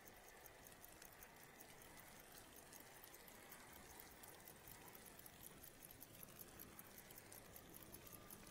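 Near silence: faint hiss with soft, fine crackling that grows a little denser toward the end, and a faint held tone coming in near the end.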